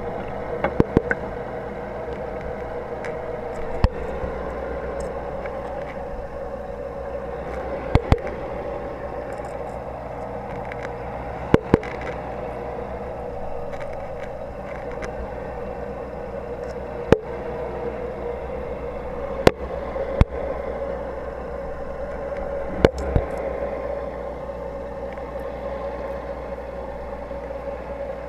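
Aquarium heard underwater: a steady rush of air bubbles streaming from an aerator. A sharp knock or click sounds every few seconds, some in quick pairs.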